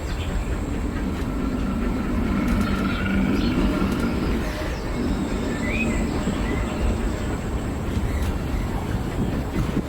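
Disneyland Railroad passenger train running along its track: a steady rumble of wheels on rails, heard from aboard, with a faint thin squeal for a few seconds starting about a second in.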